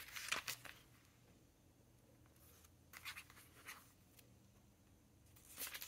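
Faint rustling and light knocks of a paper planner being handled and closed on a tabletop, in short spells at the start, around three seconds in, and near the end, with near silence between.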